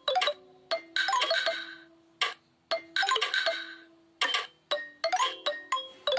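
A preloaded Nokia Lumia 520 ringtone playing: a melody of bright, mallet-like struck notes, the phrase repeating about every two seconds.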